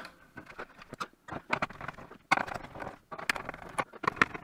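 Screwdriver undoing the small screws that hold a circuit board inside a plastic-cased cutting machine: irregular light clicks, taps and scrapes of metal on screw heads and plastic.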